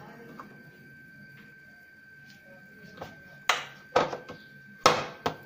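Pizza dough being kneaded by hand in a plastic bowl: after a quiet start, five or six sharp thumps come in quick succession over the last two and a half seconds as the dough is slapped and pressed down.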